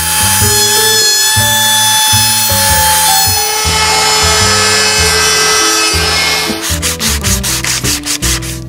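Hand-held DeWalt electric router running and cutting a profile into a mahogany board edge, a steady high whine and hiss, over background music. The router stops about six and a half seconds in, giving way to a quick run of short rasping strokes of a sanding block on the wood.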